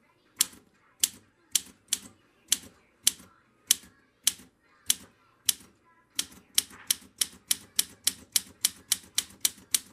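Olympia SM3 manual portable typewriter being typed key by key, each typebar striking the platen with a sharp clack. The strokes come about two a second at first, then speed up to three or four a second after about six seconds.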